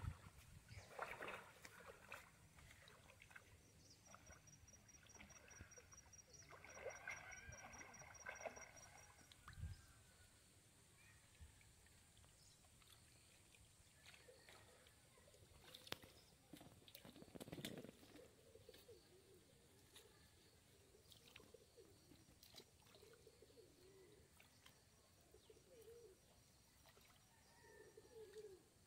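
Faint sloshing and splashing of shallow pond water as a cast net is gathered and handled, with birds calling in the background: a high rapid trill for a few seconds, and low cooing in the second half.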